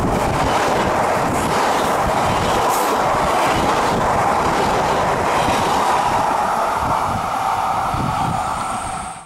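Stainless-steel RRR regional coaches of a locomotive-hauled train passing close at speed: a loud, steady rush and rumble of wheels on the rails. It cuts off suddenly near the end.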